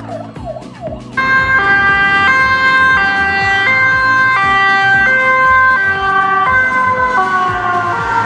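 Two-tone hi-lo ambulance siren, switching between its high and low notes about every two-thirds of a second, starting abruptly about a second in. Near the end both notes slide lower in pitch.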